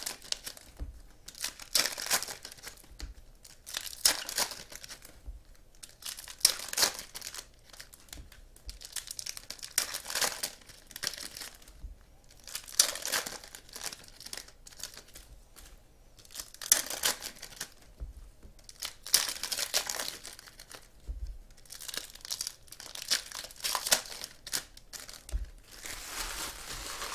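2015 Panini Contenders football card packs being torn open and their wrappers crinkled, in short bursts every second or two.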